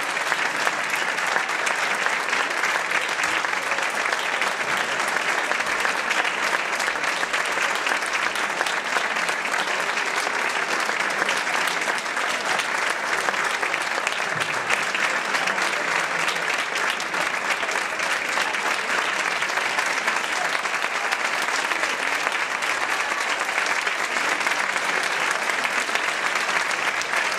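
Audience applauding, steady and sustained throughout.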